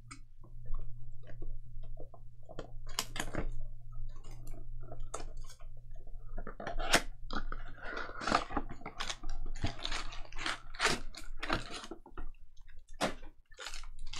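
Crinkling, crackling and tearing of trading-card pack wrappers being opened, with cards handled, in irregular bursts that are busiest about halfway through.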